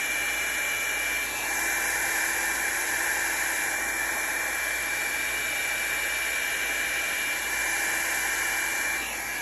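Revlon hair blow dryer running steadily: an even rush of air with a thin high whine, getting a little louder about a second in.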